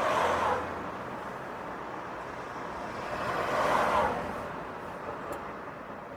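Cars passing on a city street over a steady traffic hum. One car is just going by as the sound begins and is gone within about half a second. Another swells up and passes about four seconds in.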